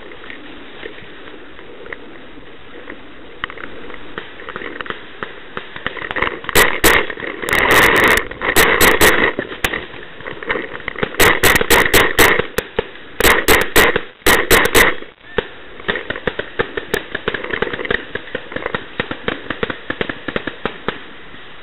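Brass Eagle Stingray paintball marker firing in rapid volleys of sharp pops, starting about six seconds in and stopping about fifteen seconds in. Under and after the shots, rustling and crunching of the player moving through forest undergrowth.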